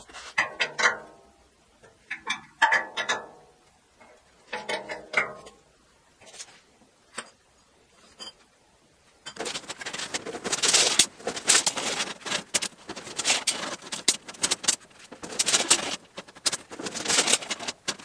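Long thin steel rods clattering and scraping against each other and the concrete floor as they are handled and laid out, a dense run of sharp metallic clicks from about nine seconds in. Three short pitched sounds come earlier, in the first five seconds.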